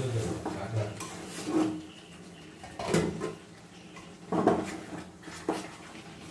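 Metal utensil knocking and clinking against cookware, four or so separate strikes a second or so apart, each with a short ring.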